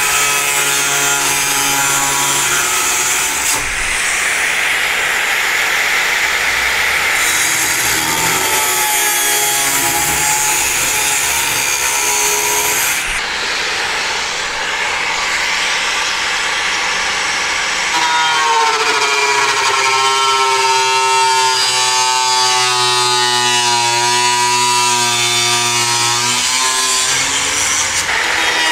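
A power tool with a cutoff wheel cutting through rusted sheet metal. The motor's whine keeps shifting in pitch as the wheel is pushed into the cut, then holds steadier in the second half.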